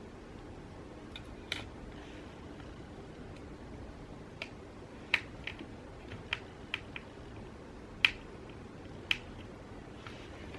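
Small sharp clicks and taps at irregular intervals, about ten of them, as a precision screwdriver and tiny parts are handled against a smartphone's housing during a repair.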